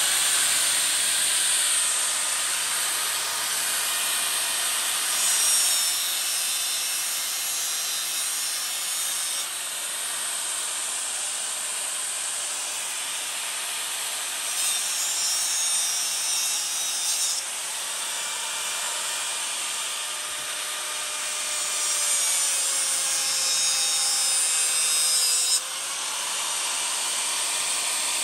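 Handheld power tool motor spinning up, its pitch rising at the start, then running steadily. It gives three stretches of harsher, brighter noise as it bites into the work, and its pitch dips slightly under load near the end.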